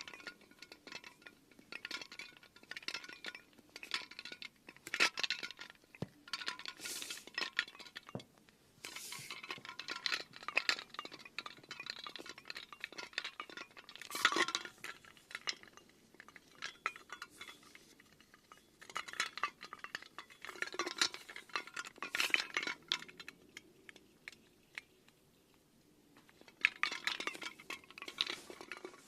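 Irregular light clinking and tapping of small hard objects, coming in clusters with short quiet gaps.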